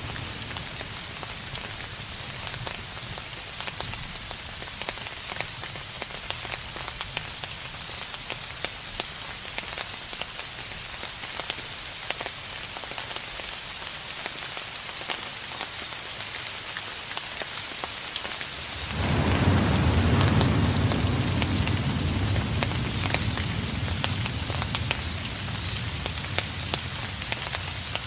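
Steady rain falling, a constant hiss of drops. About two-thirds of the way in, a low rumble of distant thunder swells up suddenly and slowly dies away.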